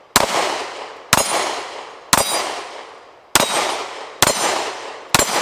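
Sig P365 pistol fired six times at a slow, even pace of about one shot a second, each shot followed by the ringing clang of a struck steel plate that dies away before the next.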